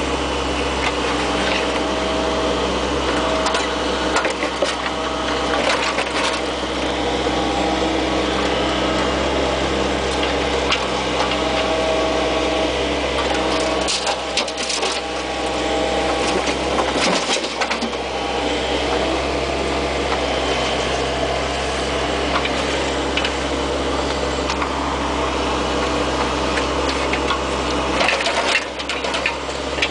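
Bobcat 430 ZHS mini excavator's diesel engine running steadily, with scattered sharp knocks from the working machine.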